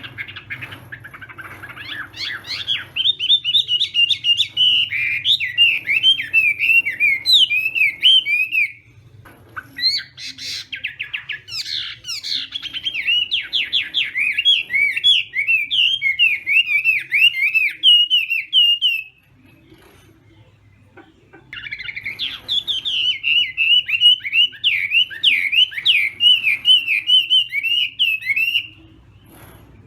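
A Chinese hwamei (melodious laughingthrush) singing in three long bouts of rapid, varied warbling phrases, with short pauses between them.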